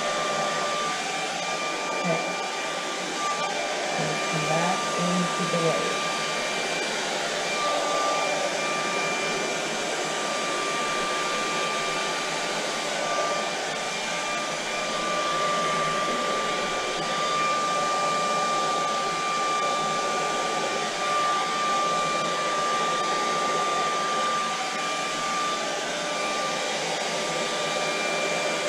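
Hand-held hair dryer running steadily, a rush of blown air with a steady whine over it, used to push wet acrylic paint across a canvas.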